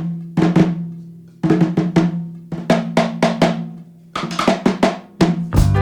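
Music: short drum fills, groups of quick drum strikes that each die away, repeated about every second and a half. Near the end the full band comes in.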